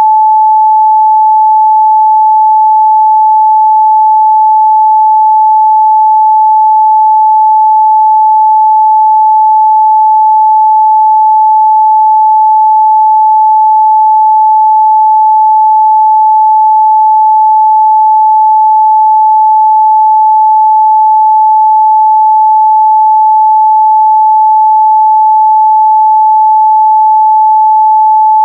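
A steady, loud 867 Hz sine-wave test tone: one pure pitch held unchanged, with nothing else.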